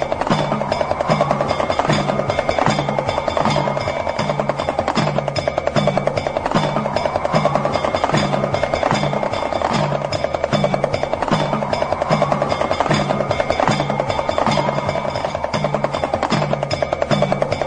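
Damru, the hourglass rattle drum, rattling in a fast, unbroken roll of clicks. A steady low drum beat runs under it, and a tone rises and falls over it every couple of seconds.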